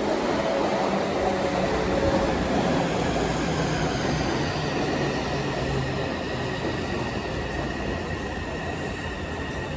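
Passenger train running through the station: a steady rumble and hiss, with a faint high whine that slowly falls in pitch over the last few seconds.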